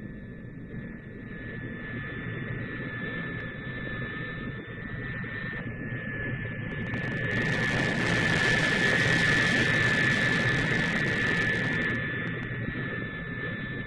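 Heavy bomber taking off: steady engine noise that builds up, is loudest from about seven to twelve seconds in as the aircraft lifts off past, then begins to fade.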